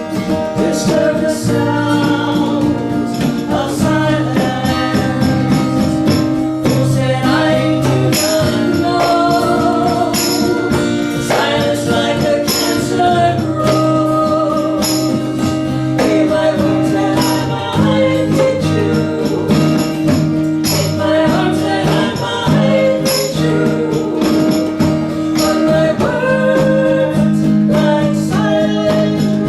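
Live band music: a sung melody over guitar and sustained bass notes, with a steady tambourine-like beat.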